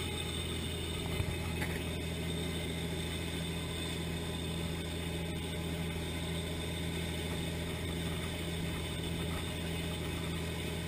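A fishing boat's engine running steadily at cruising speed, a constant low hum, under the rush of the wake and wind along the hull.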